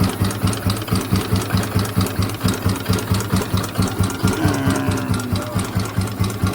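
Motorcycle engine idling with an even rhythmic clatter of about five beats a second from its timing gears: gear lash, the cam gears slapping against each other.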